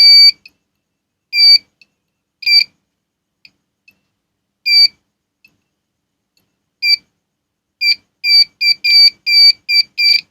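Digital multimeter's continuity buzzer beeping in short bursts as the probes touch test points on a phone circuit board: a few scattered beeps, then a quick run of about ten beeps near the end. Each beep signals a low-resistance path between the probes.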